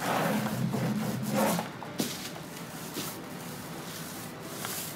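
Small paint roller rubbing back and forth as it rolls wet primer onto a countertop, about two strokes a second for the first second and a half, then quieter with a few light knocks.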